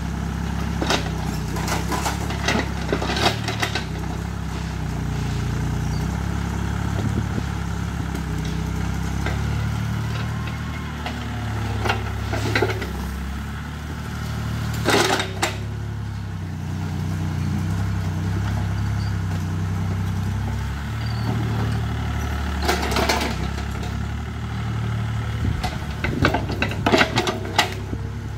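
Hitachi EX30 mini excavator's diesel engine running steadily, its note rising and falling with the digging load. Sharp clanks and knocks from the bucket scraping rocks and stones break in at intervals, in clusters early on, twice around the middle, and several near the end.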